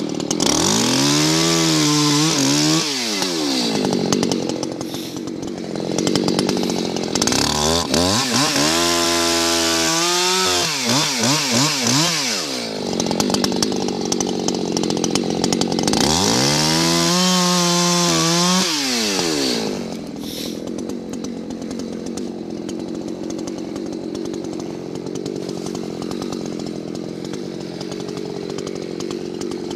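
Muffler-modded Echo chainsaw cutting maple logs: the engine revs up to full throttle and falls back three times, with rough cutting noise between, then settles to a steady idle about twenty seconds in.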